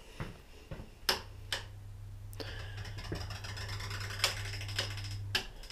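A switch clicks and a low, steady electrical hum starts, runs for about four seconds, and stops with another click near the end.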